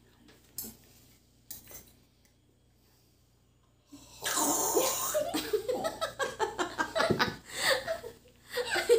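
A child making loud, rough gurgling and slurping noises into a drinking glass, starting about four seconds in, mixed with giggling toward the end. Before that there are a few soft clicks of spoons on bowls.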